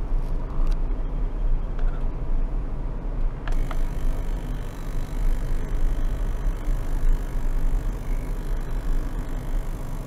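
Small ultrasonic cleaner running, a steady low hum and rumble. A brighter hiss joins suddenly about three and a half seconds in.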